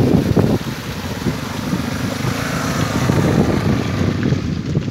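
Wind buffeting the microphone in irregular gusts, a loud low rumble, over a steady hiss that swells around the middle.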